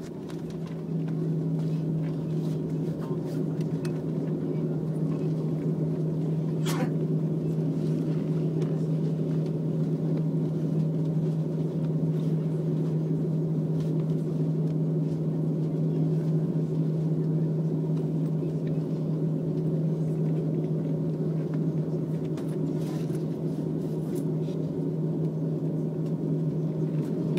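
Jet airliner cabin noise while taxiing after landing: the engines running at idle give a steady drone with a low, even hum, heard from inside the cabin.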